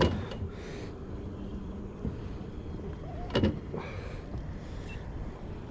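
Two sharp knocks against an aluminum jon boat, about three and a half seconds apart, as a small catfish is swung aboard on the line, over a steady low rumble.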